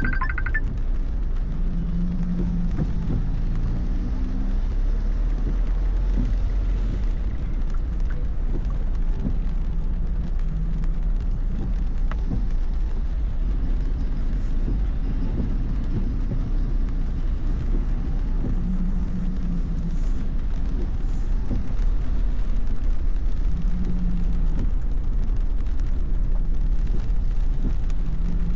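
Car cabin sound while driving on an expressway in heavy monsoon rain: steady low road and engine rumble with rain hissing on the car, louder in the last quarter.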